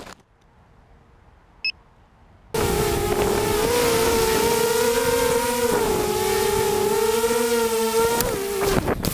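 Quadcopter's electric motors and propellers whining steadily, heard close from the onboard camera, the pitch wavering slightly with throttle. The whine starts suddenly about two and a half seconds in, after a quiet stretch with one short high beep, and drops away near the end.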